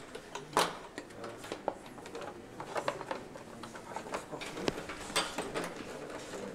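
Irregular clicks, knocks and light rattles of motorcycle fairing parts being handled and pressed into place on a prototype bike, with one sharp knock about half a second in and a denser run of small knocks in the second half.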